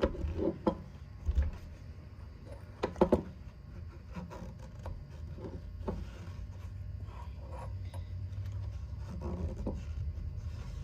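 Handling a small-engine carburetor while wiping it with a rag: rubbing and scraping with a few sharp knocks of metal on a hard surface, the loudest a double knock about three seconds in, over a steady low rumble.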